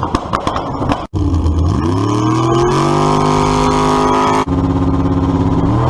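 A vehicle engine revving: its pitch climbs from about a second in and then holds high. It breaks off abruptly twice, about a second in and again past the middle, and climbs once more near the end.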